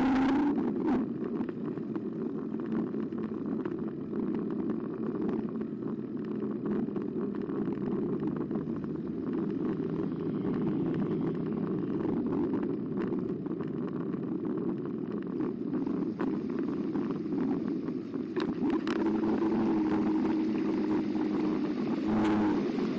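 Carbo X electric bike being ridden: a steady rumble of wind and tyre noise, with a steady whine from the bike's motor at the start and again from a few seconds before the end.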